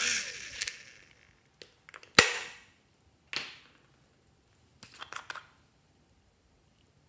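Small plastic containers handled close up: a short rustle, then a sharp loud click about two seconds in and a softer one a second later, and a quick cluster of small plastic clicks and taps near the end.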